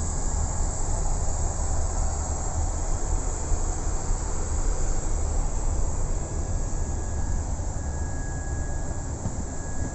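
Steady rush of air-conditioning and equipment-cooling airflow inside a parked Boeing 777-200 with its systems powered, over a low rumble, with a faint steady whine that comes up in the second half.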